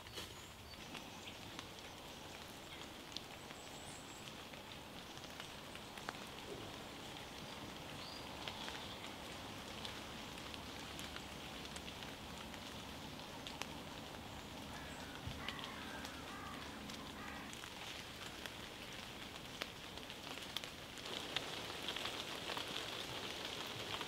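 Steady rain falling on woodland foliage, with many small scattered drips and taps, growing a little louder near the end.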